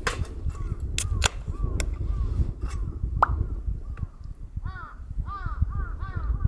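A bird calling over and over in short, arched notes, the calls coming closer together near the end. Underneath is a low rumble of wind on the microphone, with a few sharp clicks in the first few seconds.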